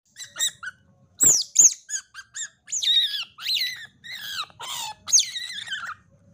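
Young otter calling in a rapid series of high-pitched squeaks and chirps, many of them falling in pitch. The calls stop shortly before the end, once it takes the feeding bottle.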